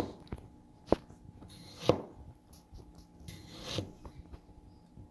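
A freshly sharpened kitchen knife slicing a tomato on a plastic cutting board: soft slicing and scraping through the flesh, with a few sharp taps, irregularly spaced, as the blade meets the board.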